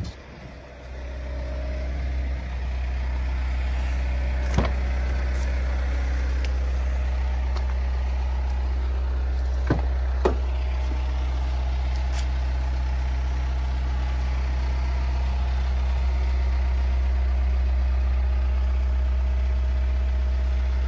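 Mitsubishi L200 pickup's diesel engine idling, a steady low rumble, with a few sharp clicks from its doors being opened, two of them close together about ten seconds in.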